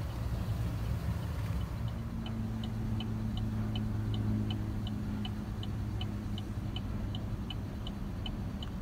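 Steady low hum of the 2018 Chevrolet Silverado's 5.3-litre V8 idling, heard inside the cab. From about a second and a half in, a short high electronic tick from the cab's warning chime repeats evenly, about three times a second.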